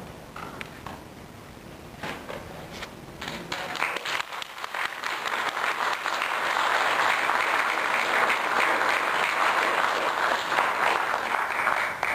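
Audience applauding: scattered claps build into steady, dense applause about halfway through, then stop sharply at the end.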